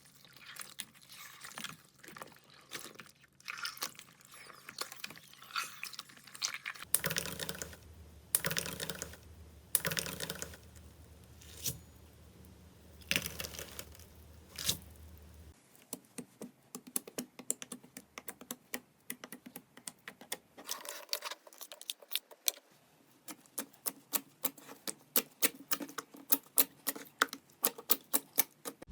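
Slime being pressed, poked and squeezed by hand, giving rapid small clicks, pops and crackles that come thicker near the end.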